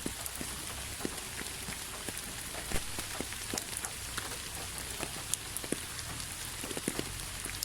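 Steady rain: an even hiss with many scattered individual drops tapping on a surface, one louder drop about a third of the way in.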